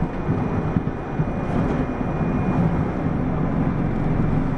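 Mitsubishi Fuso Aero Star city bus (PDG-AA273KAN) running along, its diesel engine and road noise heard from inside the cabin as a steady low rumble.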